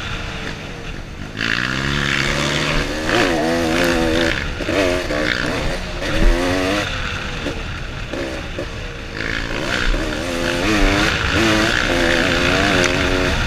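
Suzuki RMX 250 two-stroke single-cylinder dirt bike engine being ridden, its pitch rising and falling again and again as the throttle is opened and shut.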